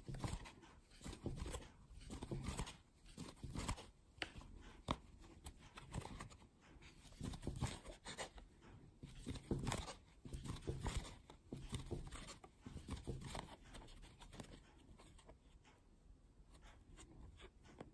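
Faint, irregular rustling and scratching of a metal crochet hook pulling white cotton yarn through single-crochet stitches, with hands handling the crocheted fabric. The strokes grow sparser and fainter near the end.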